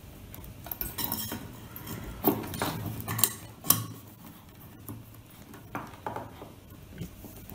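Irregular clicks and rattles of hands fastening plastic cable ties around electrical wiring, with three sharper clicks near the middle.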